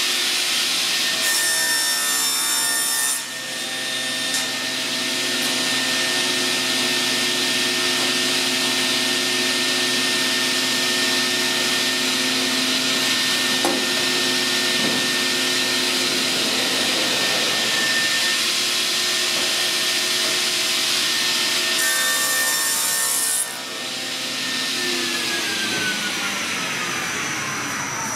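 Sliding-table panel saw running and cutting through a wood panel, a steady motor tone under the cutting noise. Near the end the saw is switched off and its pitch falls steadily as the blade winds down.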